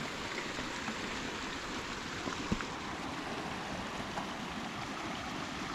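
Glacier-fed mountain stream running steadily, with a light knock about two and a half seconds in.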